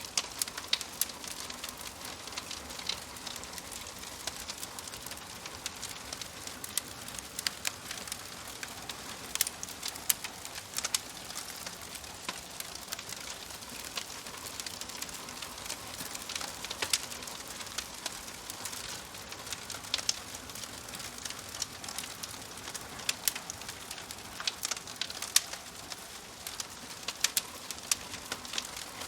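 Wood fire crackling: a steady soft hiss with frequent sharp, irregular pops and snaps.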